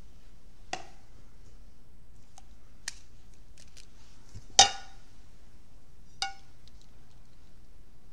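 Tableware being handled: a metal fork and a china plate clinking four times, the loudest and most ringing clink a little past halfway.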